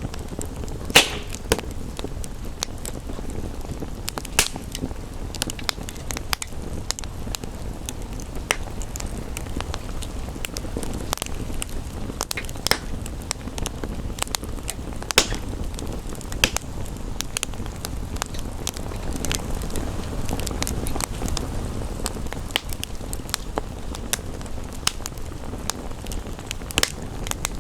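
Wood fire crackling, with irregular sharp pops scattered through, the loudest about a second in, over a steady low rush of rain.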